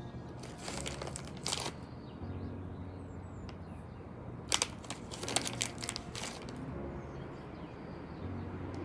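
Crackly crunching and rustling from pepper being put on a raw steak, in two short bursts, about half a second in and again around four and a half seconds, over a faint steady background.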